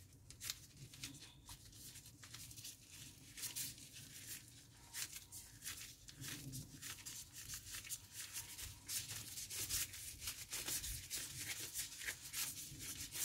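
Disposable plastic gloves crinkling and rubbing as hands press and shape ground meat around cheese cubes: faint, irregular soft crackles.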